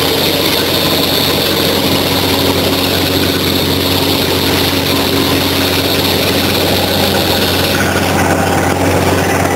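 Water-well drilling rig's engine running steadily under the rushing hiss of water gushing out of the borehole. The high hiss thins out about eight seconds in.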